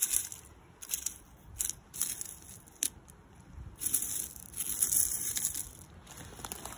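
Small loose rock chips clicking and scraping together as a finger pushes and rakes through gravel: several short separate clicks, then a longer run of scraping a little past halfway.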